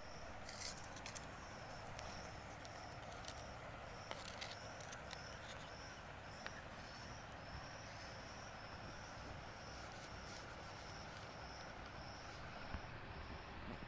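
Faint insect chirping: a short, high chirp repeating steadily about three times every two seconds, over a low background hiss, with a few scattered faint clicks.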